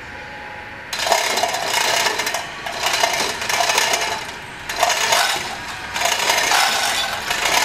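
Metal chain rattling and clinking through a manual chain hoist as a worker hauls on it, in about four long rattling stretches with short pauses between, starting about a second in.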